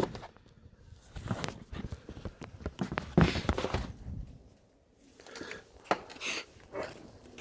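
Irregular rustling and knocking of items being handled, with footsteps, and a near-quiet gap about four seconds in.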